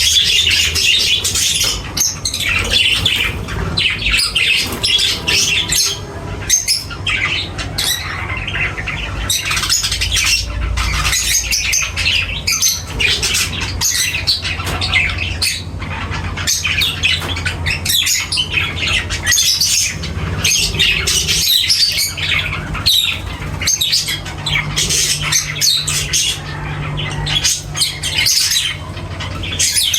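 Flock of pet budgerigars and lovebirds chattering and squawking without pause, over a steady low hum.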